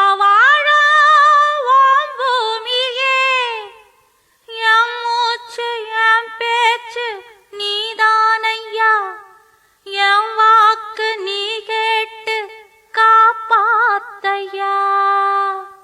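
A high solo voice singing unaccompanied, with no instruments, in four long ornamented phrases whose pitch bends and wavers, separated by short breaths.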